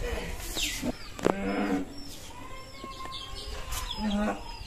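Small birds chirping in short repeated calls, with a couple of brief low vocal sounds in between.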